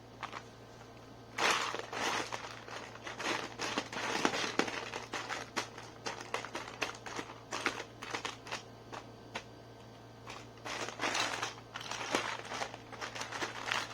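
Small plastic toys being handled and rummaged through: irregular crinkling rustles and light clicks, starting about a second and a half in, easing off briefly in the middle, then picking up again.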